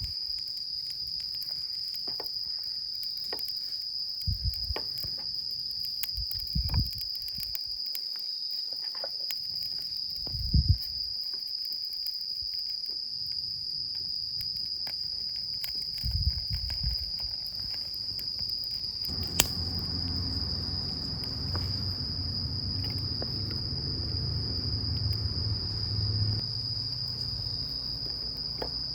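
Insects trilling in one unbroken high note, with a few dull thumps. About two-thirds of the way in there is a sharp click, followed by several seconds of low rumbling, rustling noise.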